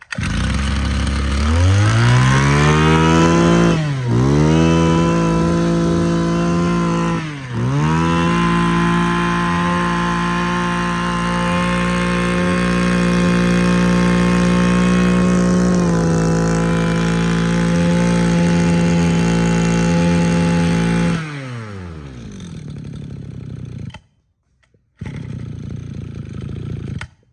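Mitsubishi TL26 26cc two-stroke brush cutter engine revved up to high speed about a second in. It drops back briefly twice, then holds steady high revs until the throttle is let go about 21 seconds in and the revs fall away.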